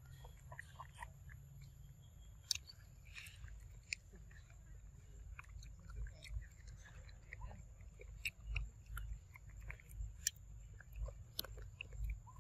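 A long-tailed macaque eating a ripe mango close to the microphone: its bites and chewing make irregular soft smacks and clicks.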